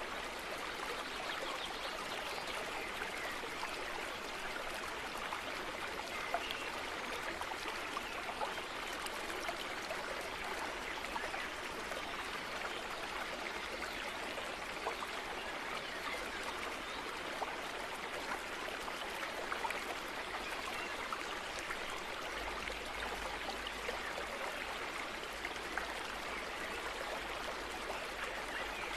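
Steady, even hiss with faint scattered small clicks.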